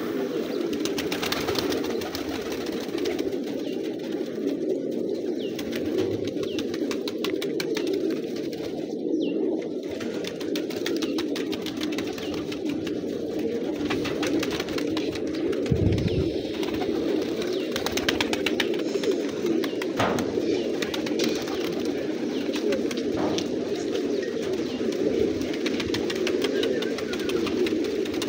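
A large flock of domestic pigeons cooing together in a dense, steady chorus, with scattered wing flaps and clicks.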